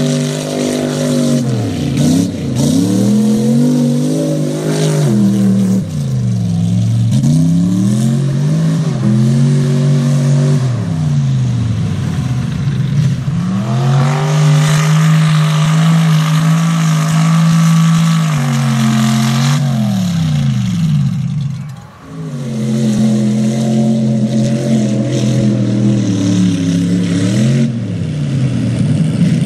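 Mud-bog mega truck's engine revving hard, its pitch rising and falling over and over as it churns through mud. The sound breaks off briefly about two-thirds of the way through.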